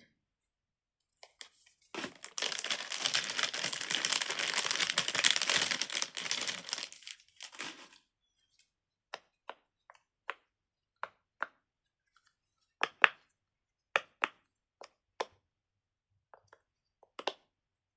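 Plastic packaging crinkling for about six seconds, then about a dozen separate pops as the bubbles of a silicone pop-it fidget toy are pressed through one at a time.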